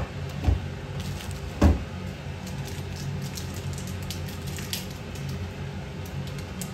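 A steady low hum with two short dull knocks, about half a second in and just under two seconds in, and faint light clicks after.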